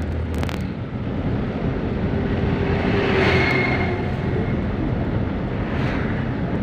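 Steady outdoor rumble with a motor vehicle's engine sound swelling to its loudest a little after three seconds in, then fading away.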